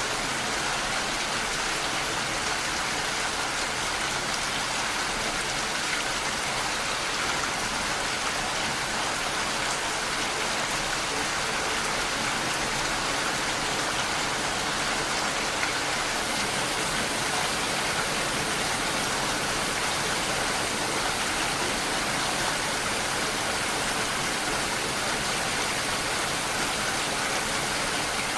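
Steady rainfall, an even continuous hiss of drops with no thunder or change in intensity.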